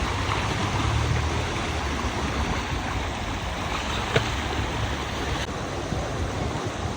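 Stream water rushing steadily, with one sharp click a little past halfway.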